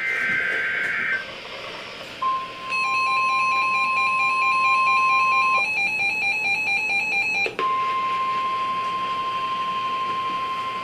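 NOAA Weather Radio Emergency Alert System tones. It opens with the end of a raspy SAME digital header burst. Then comes the 1050 Hz warning alarm tone, a steady high-pitched tone. Partway through, a repeating pattern of higher beeping tones joins it, the steady tone drops out for about two seconds, and then it resumes.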